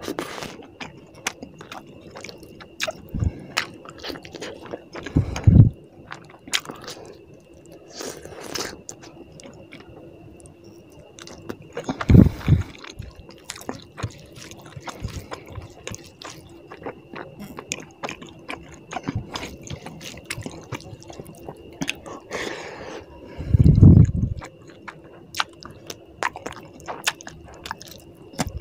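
Close-miked chewing and wet mouth sounds of a person eating tilapia fish curry with rice by hand, with moist squishing as the fingers mix the curry-soaked rice. Three louder low thumps stand out, about five, twelve and twenty-four seconds in.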